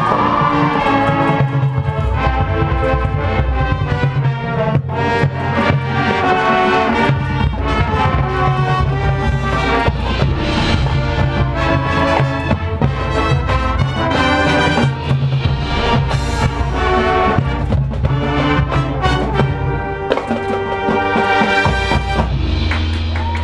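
Marching band playing its field show: brass chords over sustained low brass, with drum hits throughout.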